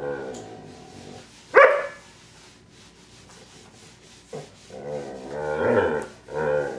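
Pet dog vocalizing on cue, trying to imitate the short "uh" vowel sound. It gives a short, sharp bark-like call about a second and a half in, then a longer, wavering, drawn-out vocal sound near the end, with a brief one after it.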